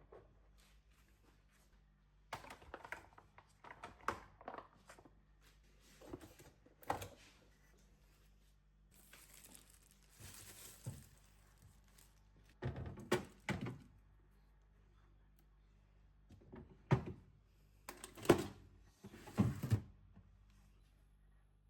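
Household handling sounds: scattered knocks and thunks of objects being set down and moved, with a spell of rustling in the middle, over a faint low hum.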